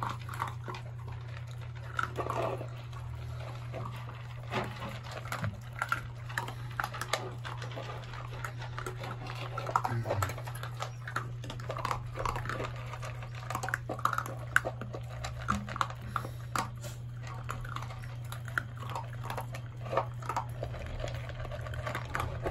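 Mixed-breed puppies eating dry kibble from a bowl: many quick crunches and clicks, with small whines and grunts among them, over a steady low hum.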